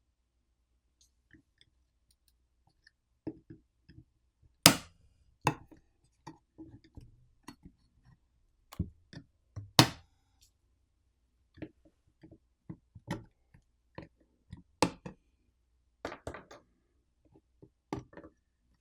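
Scattered clicks and light knocks of a precision screwdriver removing small T6 Torx screws from a smartphone, in an irregular pattern with gaps between. Two sharper clicks stand out, about five and ten seconds in.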